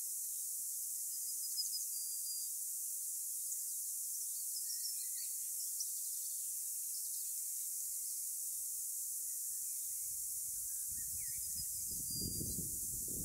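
Small birds chirping and calling faintly over a steady high hiss. Wind starts buffeting the microphone about ten seconds in.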